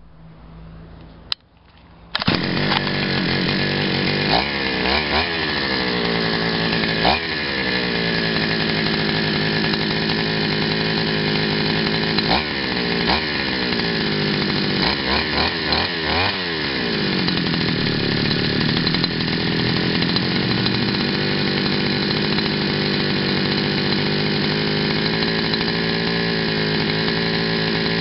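Güde two-stroke chainsaw engine, running with no air filter, bar or chain fitted while its carburettor L and H mixture screws are adjusted. It comes in loud about two seconds in and revs briefly several times, each time dropping back, for the next fifteen seconds or so. It then settles into a steady idle.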